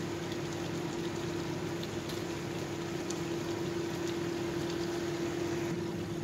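Chicken simmering in soy and fish sauce in a wok over a gas burner: a steady bubbling sizzle with a few faint pops, over a steady low hum.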